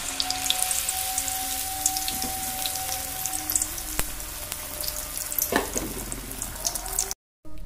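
Gram-flour-battered brinjal slice (badanekayi bajji) deep-frying in hot oil in an aluminium kadai: a steady sizzling hiss with many small crackles. It cuts off abruptly near the end.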